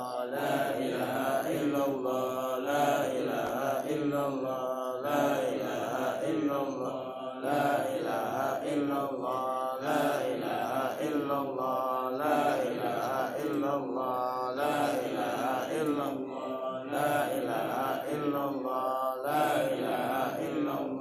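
Men chanting an Arabic dhikr in a steady rhythm, one short phrase repeated about every two and a half seconds.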